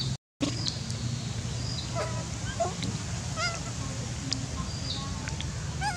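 Several short, high chirping calls from small animals, each bending up and down in pitch, scattered over a steady low rumble. The sound cuts out briefly just after the start.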